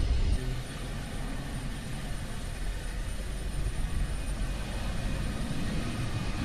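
Distant airliner's engines running on the runway: a steady rumble with a faint high whine, slowly growing louder.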